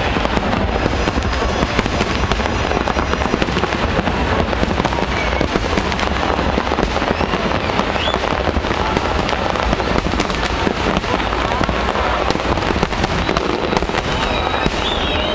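Large aerial fireworks display: a dense, continuous barrage of overlapping bangs and crackling at a steady, loud level. A wavering high whistle rises out of it near the end.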